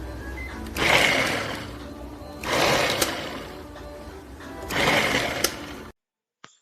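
Small electric food chopper's motor whirring, with loud surges about every two seconds as the blades work through the food; it cuts off suddenly about six seconds in.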